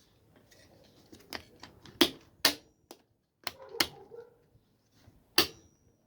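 Sharp plastic clicks and knocks, about six loud ones spread out, a few leaving a brief high ring, with quieter handling between: the angle grinder's trigger switch and its plastic parts being pressed and worked by hand to find out why the trigger sticks.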